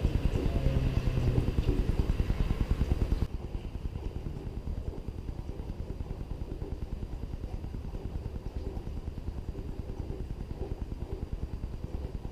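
Nissan Altima Coupe 3.5 SR's 3.5-litre V6 running through a Borla cat-back exhaust, with a loud, steady exhaust note at first. About three seconds in, the sound drops suddenly to a quieter, steady low exhaust rumble.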